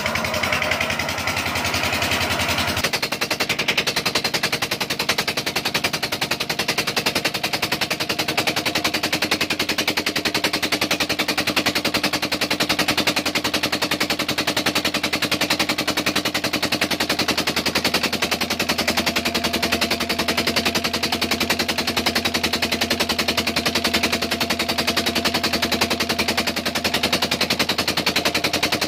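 Old single-cylinder stationary diesel engine running steadily under load, driving a water pump. Its exhaust fires in a rapid, even chug of repeated knocks.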